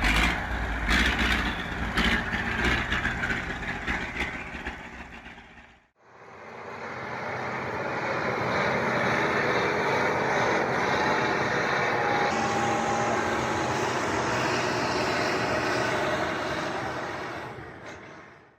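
Engines of heavy off-road vehicles running under load: a TDT-55 tracked skidder towing a ZIL-131 truck. The sound drops to silence about six seconds in, then a steady, even engine noise picks up again.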